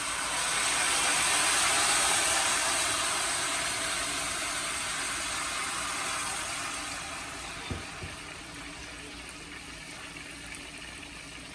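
Water poured from a measuring cup into a hot pan of broccoli and melted butter, hissing and sizzling loudly in the first few seconds, then settling into a softer steady sizzle. A light knock about eight seconds in.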